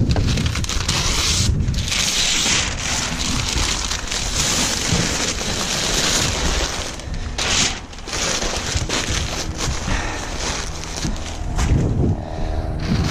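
Heavy paper wrapping rustling and crinkling as it is pulled off a foil board and bunched up by hand, with a couple of brief pauses.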